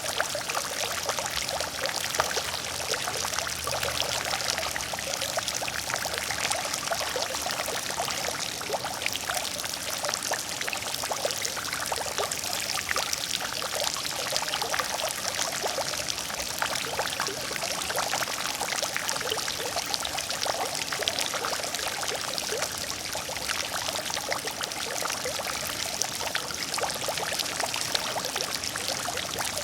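Water fountain splashing steadily: falling water pouring and spattering into a pool, a dense even patter of small splashes.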